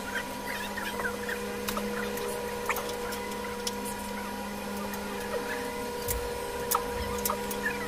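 A steady machine hum made of several level tones, with small irregular clicks scattered through it as wires are worked with pliers.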